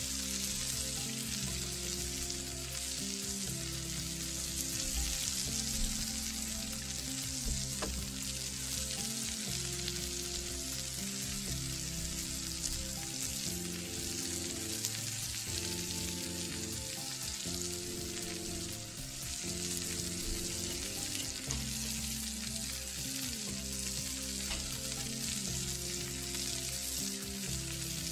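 Ground beef smash burger patties sizzling steadily on a hot cast iron griddle under a cast iron burger press, with instrumental background music underneath.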